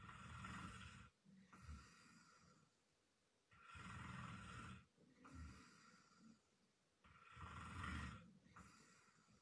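A man snoring in his sleep: three snores about three and a half seconds apart, each a long breath followed by a shorter, softer one. Faint.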